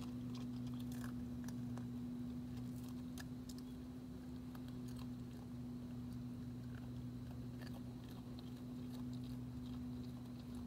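An opossum crunching food, with scattered short crunches and clicks that come thicker in the first few seconds and again later. A steady low hum runs underneath and is the loudest sound.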